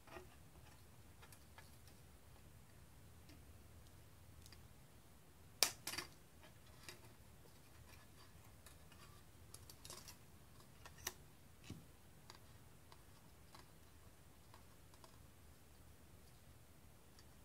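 Faint, scattered clicks and ticks of thin metal model-kit pieces and a small hand tool being handled at a table. A sharp click about six seconds in is the loudest, followed by a few lighter clicks around ten to twelve seconds in.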